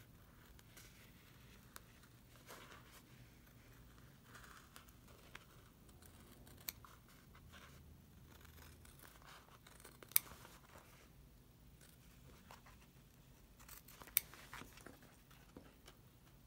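Gingher scissors cutting through a sheet of faux leather: faint snipping and rasping of the blades through the material, with a few sharper clicks standing out.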